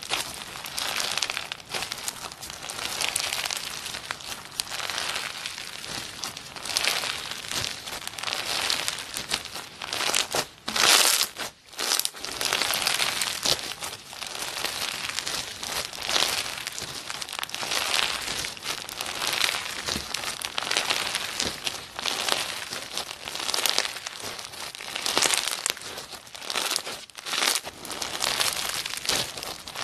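Hands squeezing, pressing and pulling apart a thick grainy slime full of foam beads: a crackling, crinkling sound that swells with each squeeze and eases between them. One louder burst comes a little over ten seconds in.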